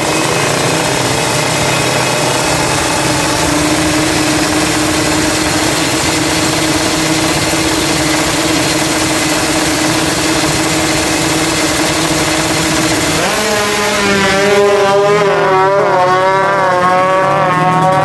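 Kawasaki Ninja 155cc two-stroke single-cylinder engine running loud and steady at one pitch, then revved up and down in quick wavering blips for the last few seconds.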